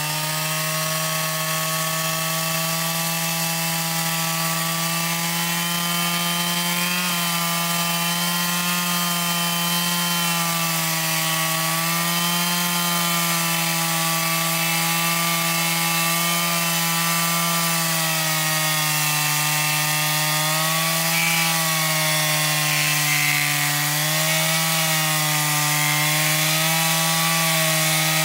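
Shindaiwa 59cc two-stroke chainsaw with an 18-inch bar and standard chain running at full throttle while rip-cutting lengthwise down through a log. The engine note holds steady, dipping slightly in pitch now and then as the chain takes load in the cut.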